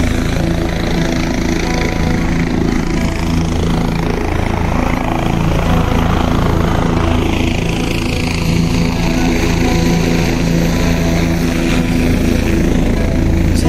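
A steady low mechanical drone with a hiss over it.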